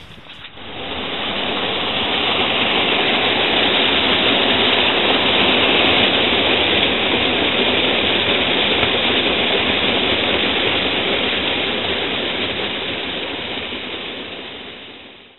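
Small mountain stream rushing over an icy cascade: a steady rush of water that swells in over the first second or two and fades out near the end.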